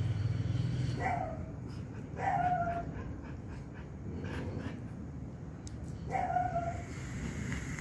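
Jack Russell Terrier whining while the pair are tied in mating: three short whimpers, each dropping slightly in pitch, about a second in, a second later, and near the end.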